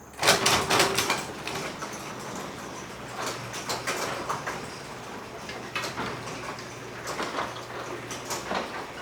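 Garage door running on its electric opener: a steady low motor hum under irregular clicks and rattles from the door travelling in its tracks. The rattle is a sign of worn-out steel rollers.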